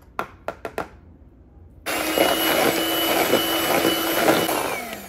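Electric hand mixer switched on about two seconds in, running steadily with a high whine as its beaters whisk pancake batter in a plastic bowl, then winding down in pitch near the end. Before it, a few light clicks.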